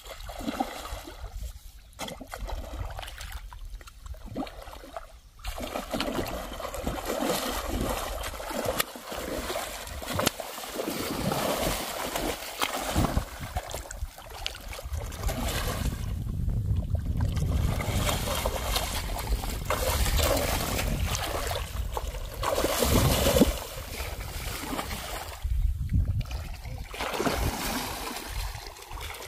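A large hooked rohu thrashing and splashing at the surface of shallow water as it is played in on a rod, with the water sloshing in uneven surges.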